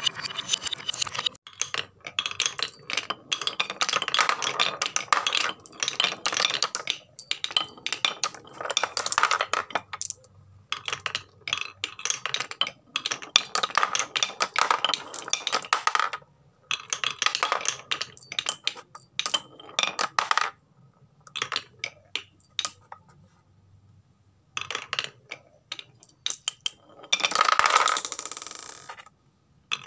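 Marbles rolling and clattering down wooden marble-run tracks, clicking against each other and the wood in bursts with short pauses between runs, and a longer rolling rush near the end.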